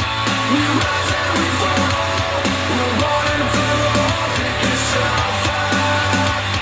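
Music played back through a JBL Flip 6 Bluetooth speaker: an instrumental passage with guitar, a steady bass and a regular beat, with no singing.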